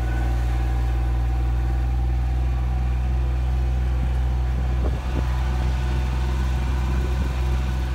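Utility vehicle's engine running steadily, a low even hum, with a few light knocks about five seconds in.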